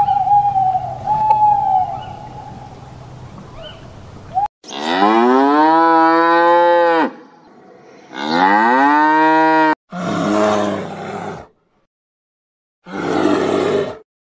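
An owl gives a steady whistled call. Then cattle moo twice, each a long call that rises and then holds for about two seconds. These are followed by two shorter, rougher calls.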